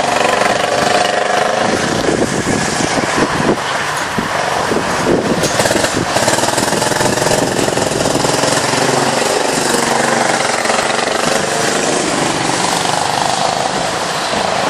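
Go-kart engines running as karts lap the track, their pitch rising and falling with the throttle, with a rattly, buzzing edge.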